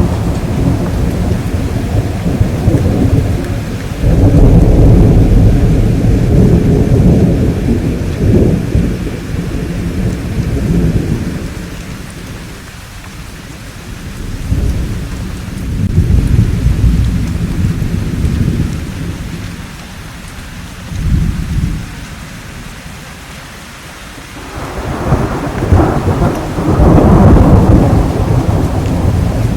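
Thunderstorm: steady rain with repeated deep rolling thunder. A loud rumble breaks in suddenly about four seconds in, shorter rumbles follow in the middle, and another big peal swells up near the end.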